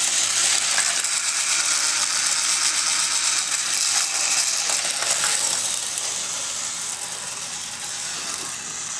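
Small motorized toy bullet train running, its motor and gears whirring with a fast rattling clatter. It grows a little quieter about six seconds in.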